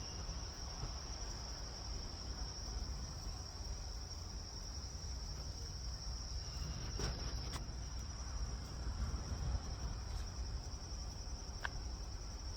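Insects trilling in a steady, continuous high-pitched chorus over a low background rumble, with a few faint clicks about halfway through and near the end.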